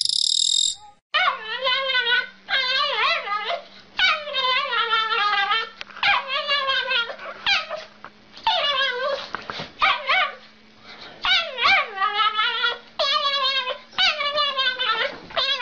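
A small dog whines and howls in a long run of wavering, up-and-down calls, each about a second long with short breaks between them: the 'talking' vocalizing of a pet dog. Before it starts, at the very beginning, a bird gives a brief high call.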